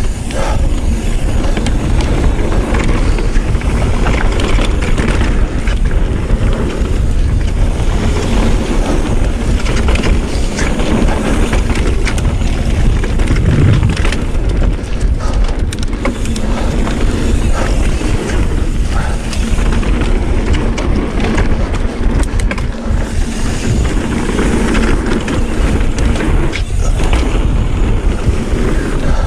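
Mountain bike riding fast down a packed-dirt trail: knobby tyres rolling on the dirt and wind rushing over the microphone make a loud, steady rush, with scattered knocks and rattles from the bike over bumps.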